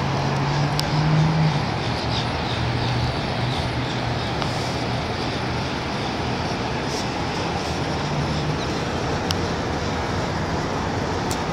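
Steady hiss of city traffic heard from high above the streets, with a low engine hum standing out over the first few seconds and briefly again later.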